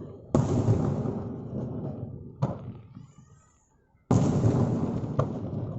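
Aerial firework shells bursting: a loud boom just after the start that rumbles away over about two seconds, a sharp crack at about two and a half seconds, and another boom with a rumbling tail a little after four seconds.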